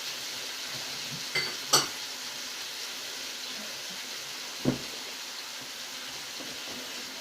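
Food frying in hot oil in a skillet, a steady sizzle. Two sharp clinks of a utensil on the pan about one and a half seconds in, and a duller knock near five seconds.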